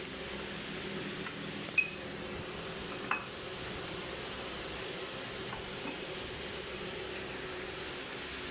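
Two sharp metallic clinks, about two and three seconds in, as metal parts or tools are handled, over a steady background hum.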